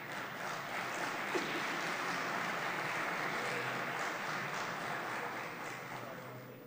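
Applause from the assembly's members, greeting a deputy called up to take his oath; it builds in the first second, holds steady, and fades away near the end.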